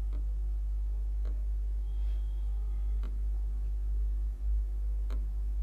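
Steady low electrical hum on the recording, with a few faint, widely spaced clicks.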